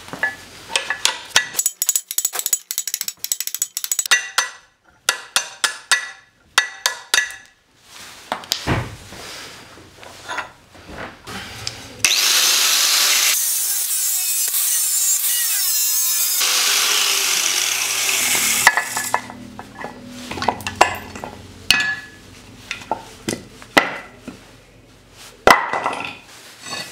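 Quick rhythmic scraping strokes on rusty metal. About halfway through, an angle grinder runs for about six seconds, grinding rust off a pipe vise's base, and then the scraping strokes resume.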